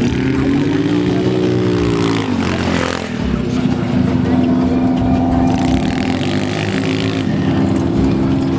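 A stripped-down 2007 Hi Tong 150cc GY6 four-stroke single-cylinder scooter engine runs under throttle as it is ridden. Its pitch rises and falls for the first couple of seconds, then drops off sharply. From about three seconds in it holds a steady note, easing a little lower near the end.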